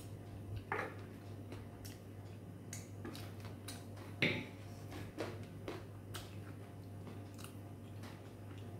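Someone eating rice and curry by hand: chewing and soft mouth sounds with scattered light clicks and taps, and a sharper knock about four seconds in. A steady low hum runs underneath.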